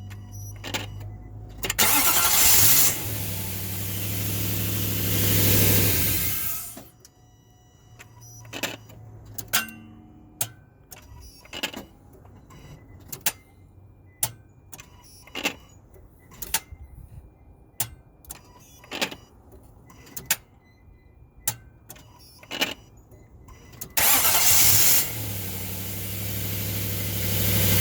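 A 2005 Nissan Titan's 5.6-litre V8 starts and runs for about five seconds, then stops. Next comes a long series of sharp single clicks, roughly one a second, with no engine sound. The engine then starts and runs again near the end.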